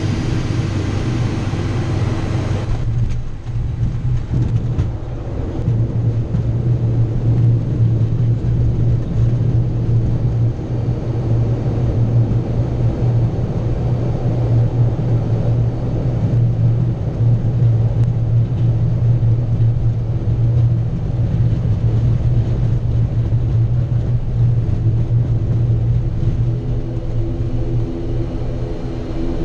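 ATR 42 turboprop's engines and propellers heard from inside the cockpit, a steady low drone with rumble as the airliner lands and rolls out along a dirt airstrip. A hissier high layer in the sound cuts off suddenly about three seconds in.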